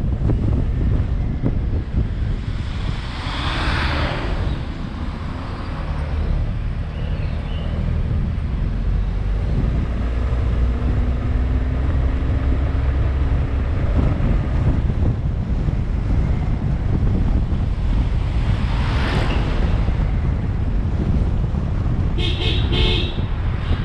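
Vehicle on the move: a steady low engine and road rumble, swelling twice, with a few short horn toots near the end.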